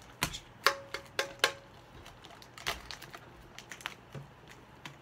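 Hands working at a shrink-wrapped metal Pokémon card tin, trying to get it open: a run of sharp taps and clinks, about five in the first three seconds and fainter ones after, two of them leaving a brief metallic ring.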